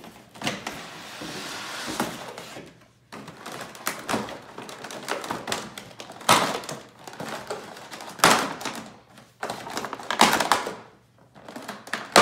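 Cardboard box and clear plastic toy packaging being handled and pulled apart: rustling and scraping early on, then crinkling with several loud knocks and thunks of the plastic tray on a wooden table.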